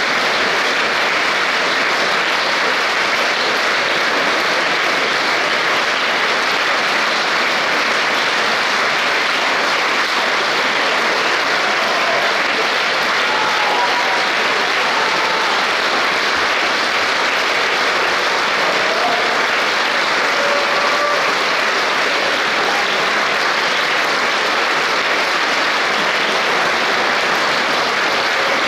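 Concert-hall audience applauding: a dense, steady clapping that holds at an even level throughout.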